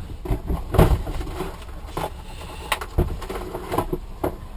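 Handling noise at a workbench: a few light knocks and clicks with some rustling as small parts and pieces of heatshrink tubing are picked up and put down.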